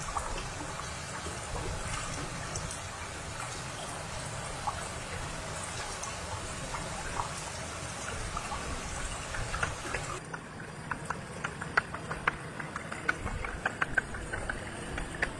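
Shallow stream trickling over stones, a steady running-water hiss. About ten seconds in the sound changes to a quieter background with a run of sharp, light knocks, several a second.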